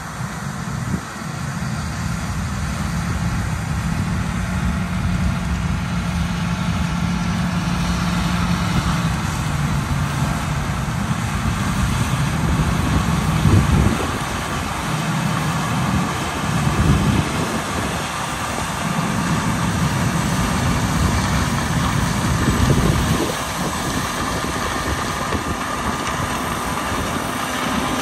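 Diesel engines of a John Deere S790 combine and a tractor pulling a grain cart, running together in a steady drone. The drone swells briefly several times as the machines move.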